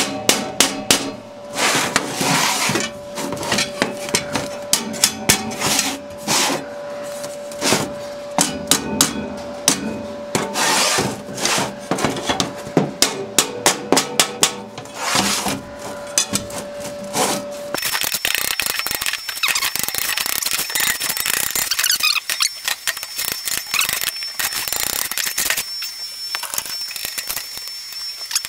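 Hammer tapping along the folded edges of a sheet-steel ash pan braced with a steel block: a rapid, irregular run of sharp metallic blows with a ringing tone, squaring up the corners. About two-thirds of the way through the blows stop suddenly and a steady hissing noise with a faint high whine takes over.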